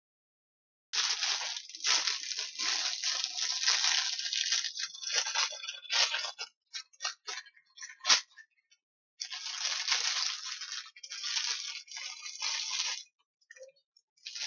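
Thin clear plastic bag crinkling and rustling as it is opened and handled: two long stretches of crackling with a few sharp crinkles in the pause between.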